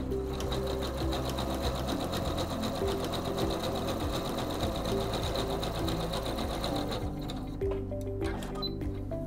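SINGER C430 computerized sewing machine stitching a narrow zigzag, running at a steady speed with rapid, even needle strokes. It stops about seven seconds in, followed by a few light clicks.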